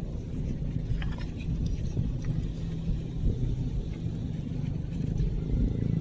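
Outdoor wind rumbling on the microphone, a steady low rumble, with a few faint clicks as the shell is picked up and handled.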